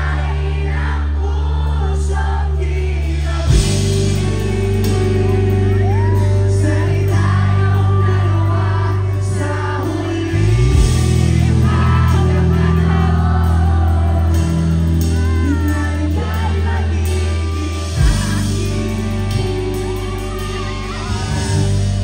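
Live pop-rock band playing through the PA, with electric guitars, bass and drums and singing over them, heard from the crowd. The bass moves to a new held note about every seven seconds.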